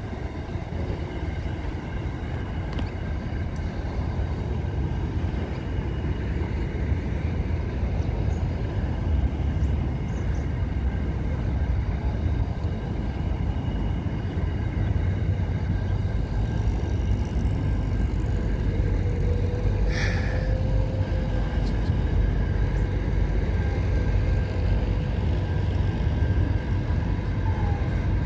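Intermodal container freight train passing at trackside: a steady rumble and clatter of wagon wheels on the rails, growing slightly louder, with faint steady high ringing tones and one short squeak about two-thirds of the way through.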